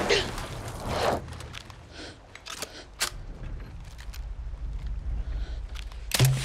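Water splashing as a body is hauled out of rough sea, then the sea's low rumble under a series of sharp metallic clicks and knocks, hands and feet on a metal buoy ladder, with a loud knock near the end.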